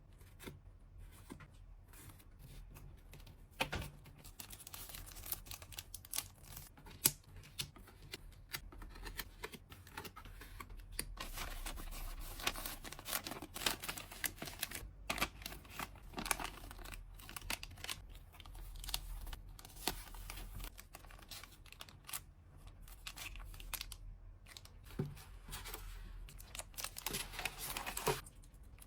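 Hands packing a parcel: plastic and paper packing materials crinkling and tearing, with many small clicks and taps, busiest through the middle.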